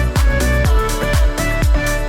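Background music with a steady kick-drum beat, about two beats a second, under a sustained melody.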